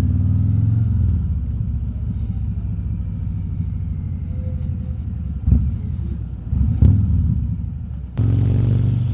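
Harley-Davidson Road King Special's V-twin engine running on the move, a steady low rumble picked up by a wireless mic inside the rider's helmet. There are two short knocks around the middle, and near the end it turns suddenly louder with a rushing noise.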